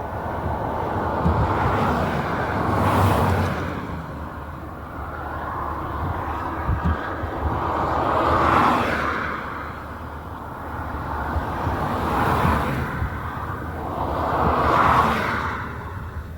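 Strong gusty wind from a tornado-producing supercell, rising and falling in four loud surges a few seconds apart and buffeting the microphone with low rumbles: a blast of dust-laden wind arriving.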